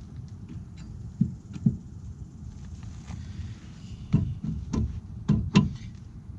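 Six sharp knocks of tools against metal, mostly in pairs, as a car's front brake caliper and its bolts are worked loose.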